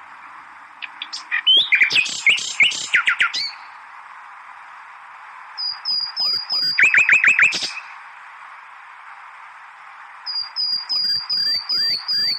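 Songbirds calling in three bursts of quick, rapid chirps and repeated high whistled notes, over a steady background hiss.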